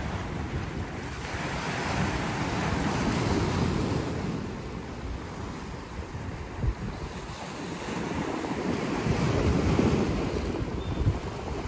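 Gulf waves breaking and washing over the rocks of a jetty, surging louder twice, with wind buffeting the microphone in gusts.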